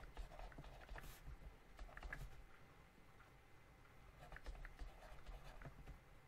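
Faint taps and scratches of a pen writing, a few soft clicks over near silence.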